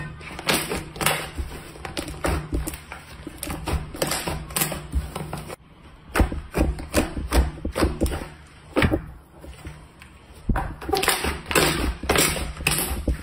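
Slime being squeezed and poked by hand, giving a run of irregular sticky clicks and pops, with two brief lulls.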